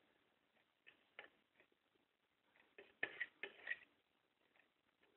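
Faint, irregular tapping and clicking of a cat's paw batting at a clock, with a quick cluster of louder clicks about three seconds in.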